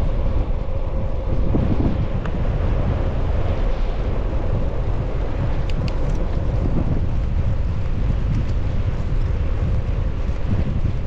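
Wind buffeting the microphone, a loud steady rumble, with a faint steady hum beneath it and a few faint ticks about six seconds in.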